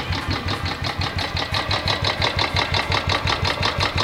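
Royal Enfield Classic 350's single-cylinder Twinspark engine idling with a steady, even beat while it warms up before an oil change.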